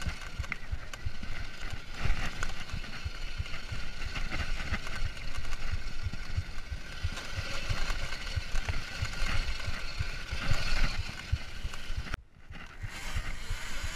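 Kuberg Ranger electric dirt bike ridden fast over rough forest singletrack: constant wind buffeting and knocks and rattles as it bumps along the trail, with a thin steady whine from the electric drivetrain. About twelve seconds in, the sound drops out almost completely for under a second, then returns.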